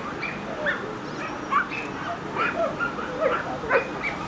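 Dogs barking and yipping in short, quick calls at several different pitches, two or three a second, some overlapping.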